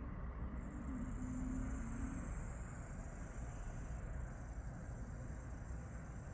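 Anker 6-in-1 140W charging station giving off a constant high-pitched screech and static while charging, briefly louder twice, about half a second in and about four seconds in. The sound is the fault that makes the owner call the unit defective.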